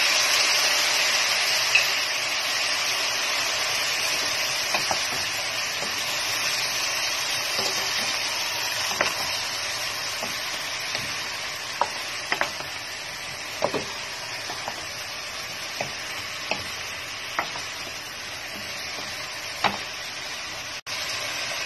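Chicken pieces sizzling in hot oil in a pot, the sizzle loudest at first and slowly easing, with scattered short sharp clicks and pops.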